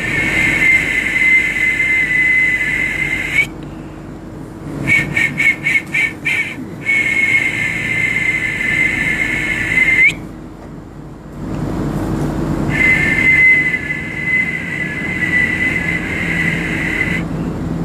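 A high, steady whistle tone held for several seconds at a time, three long blasts with a quick run of about six short toots between the first two.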